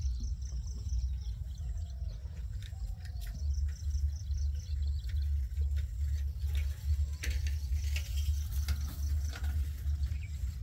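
Outdoor ambience dominated by a low wind rumble on the microphone, with faint high chirping in the first few seconds and a few light clicks later.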